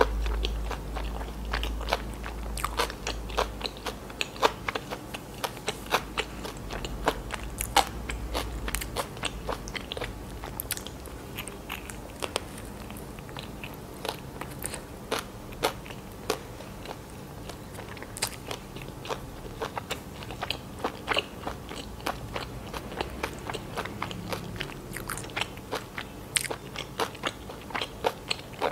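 Close-miked chewing of a chicken-mayonnaise sandwich with lettuce on soft white bread: moist mouth clicks and soft crunches, several a second, with a few bites.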